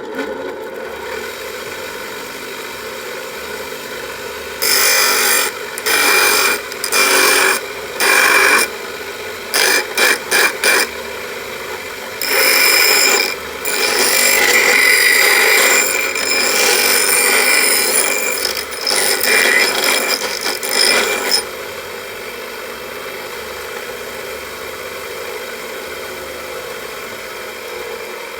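A power tool motor running steadily, with repeated bursts of harsh, louder noise, as if the tool were biting into work. The bursts come in the first two-thirds, then the motor runs on alone.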